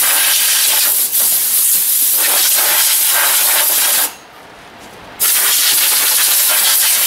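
Compressed-air blow gun hissing in a long blast, blowing dust off a John Deere 110 TLB. It cuts off about four seconds in, then starts again a second later.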